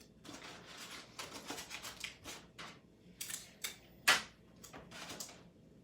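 Hands working aluminium foil and sticky tape, taping foil flaps down inside a cup: a run of short crackles and rustles, the loudest about four seconds in.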